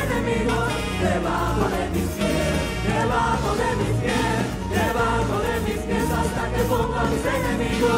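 Worship choir and congregation singing a praise song together with a live band and drums.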